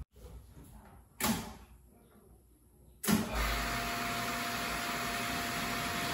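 A short knock about a second in. At about three seconds the water refilling station's electric pump switches on and runs steadily, with a faint hum under the hiss of water rushing through the filter housings as the system is powered up for a leak check.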